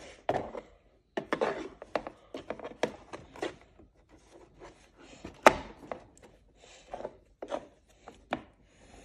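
Hands handling a plastic dollhouse bed, a doll and a small fabric blanket: rubbing and rustling with irregular light plastic taps and clicks, the sharpest knock about five and a half seconds in.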